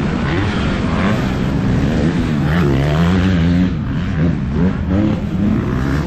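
Yamaha WR155R's single-cylinder four-stroke engine being ridden hard, its pitch rising and falling several times as the throttle is opened and closed.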